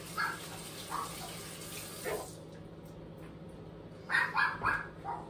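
Kitchen tap running, then shut off a little over two seconds in, while a dog barks: a few single barks, then a quick run of four barks near the end.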